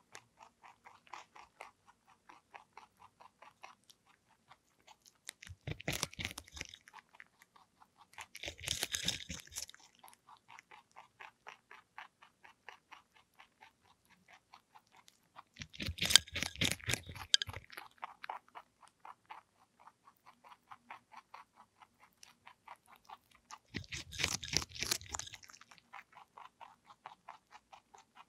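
Lionhead–Dutch mix rabbit eating a raw cucumber: a fast, steady run of small chewing clicks, broken four times by louder, wetter crunches as it bites off fresh pieces.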